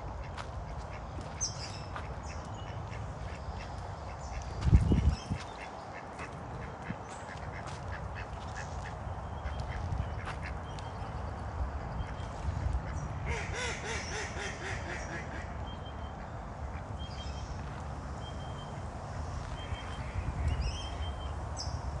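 Ducks quacking among scattered short bird calls, with a denser run of calls about thirteen seconds in. A steady low rumble runs underneath, and a single loud thump comes about five seconds in.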